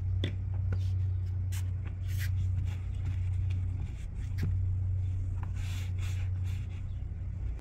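Microfiber towel wiping a car's side window glass in short rubbing strokes, over a steady low hum.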